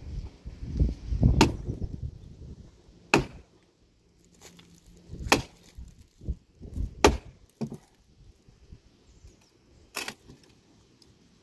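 Axe chopping into a dry, dead tree branch: about five sharp strikes on wood, irregularly spaced one to three seconds apart, with a few lighter knocks between them.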